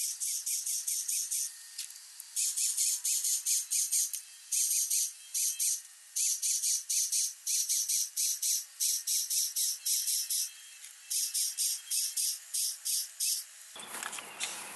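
Corded electric drill boring a row of small holes in PVC pipe, heard sped up. It comes as short, high-pitched bursts in quick succession, grouped with brief gaps between holes. About a second before the end there is a short, fuller noise.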